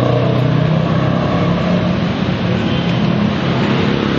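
Steady mechanical drone with a low hum and a hiss over it, keeping an even level throughout.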